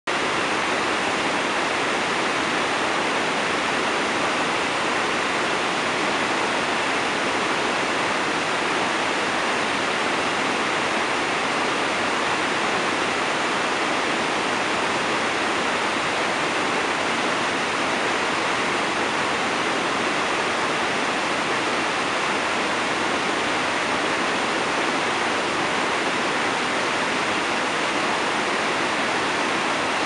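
Creek water pouring down a rocky cascade over stone ledges: a steady, unbroken rush of falling water.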